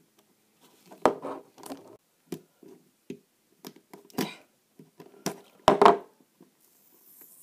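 Thin metal blade of a multitool scraping and prying stickers off the plastic faces of a 3x3 puzzle cube: irregular small clicks and scrapes, with a louder clatter about six seconds in.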